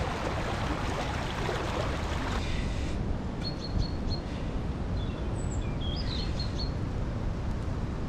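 Shallow river water running over a riffle, which cuts off after about two and a half seconds. A low steady rumble stays under it, and a small bird calls with short, high, repeated chirps in two runs.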